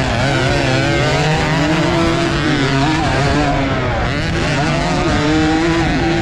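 Small AX115 racing motorcycle engine at high revs, its pitch rising and falling with the throttle as it works around a dirt motocross track, heard close up with a steady rush of noise.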